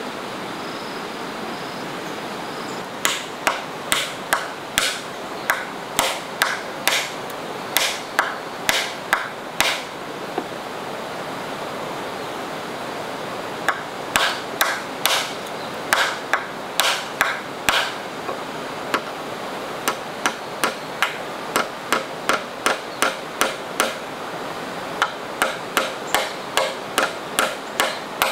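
Hammer blows on a wooden log crossbeam, nailing it in place, in runs of quick strikes about two to three a second with short pauses between, over a steady background hiss.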